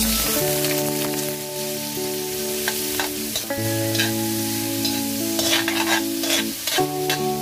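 Shrimp hitting hot oil in a stainless steel wok and sizzling steadily, with a spatula scraping and clinking against the pan as they are stir-fried. Soft background music with long held notes plays underneath.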